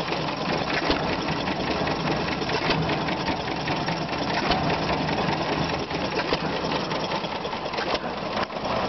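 1940 Stover CT-2 hit-and-miss gasoline engine running and driving a Jaeger cement mixer, with a steady, rapid mechanical clatter.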